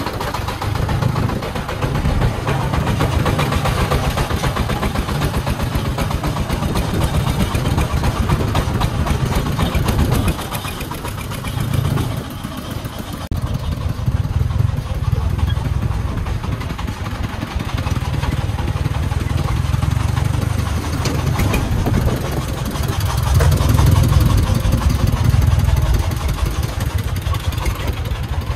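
Công nông three-wheeled truck's 24-horsepower single-cylinder diesel engine running under load, a fast steady chugging that swells and eases as the brick-laden truck drives on, easing off briefly about ten seconds in.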